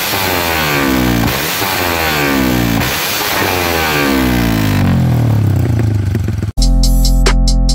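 Yamaha 135LC's single-cylinder four-stroke engine through an open Red Leo 'siput' exhaust, revved in quick blips about four times, the revs falling back after each, then easing down toward idle. About six and a half seconds in it cuts off suddenly and electronic music with a drum beat takes over.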